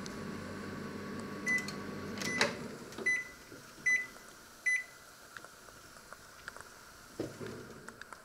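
Panasonic inverter microwave oven running with a steady hum, then a beep and a click as the door is opened and the hum stops. Three short beeps follow about a second apart, then small handling clicks, and the door clunks shut at the very end.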